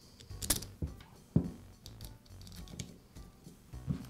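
Soft background music, with a few light clicks and knocks as the metal shear's housing is handled and set down on the workbench.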